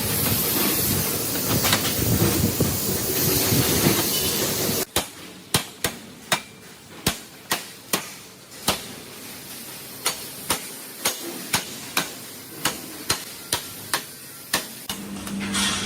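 A hammer striking metal repeatedly, about two blows a second, each blow sharp and briefly ringing. Before the hammering, a loud, dense workshop noise runs for about five seconds and cuts off suddenly. Near the end a steady machine hum starts.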